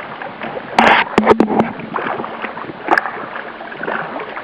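Water lapping and splashing against a kayak hull in strong wind, with a quick flurry of knocks and rattles about a second in and one more sharp click near three seconds in.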